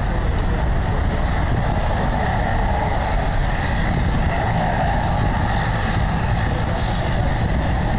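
Delta airliner's jet engines running at high power, a loud steady roar with a heavy low rumble of jet blast; the brighter whine swells slightly in the middle.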